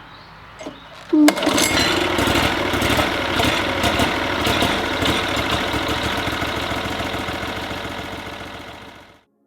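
Norwood portable sawmill's gasoline engine pull-started by hand with its recoil cord: it catches on the pull about a second in and then runs steadily, easing a little before cutting off suddenly near the end.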